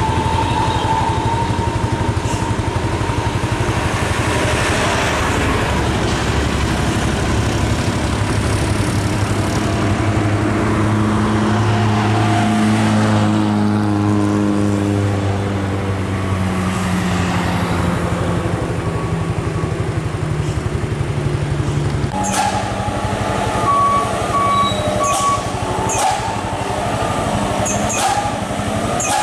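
Heavy diesel truck engines running on the road. Around the middle the engine note falls slowly over several seconds. About two-thirds in the sound changes abruptly to a different mix of engine noise with scattered clicks.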